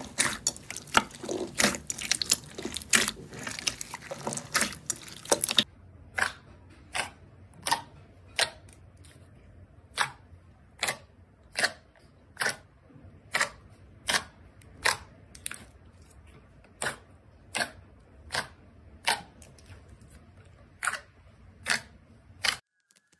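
Crisp clicking from hands-on ASMR play: first a dense run of crackles for about five seconds, then single sharp clicks about every 0.7 s, which stop suddenly near the end.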